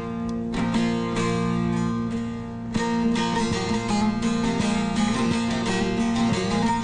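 Long-necked saz (bağlama) played solo: a plucked melody over a ringing drone string, starting sparse and turning into fuller, faster playing about three seconds in.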